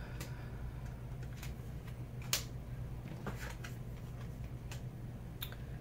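Tarot cards being handled and laid down, making scattered light clicks and taps, one sharper click a little past two seconds in, over a steady low hum.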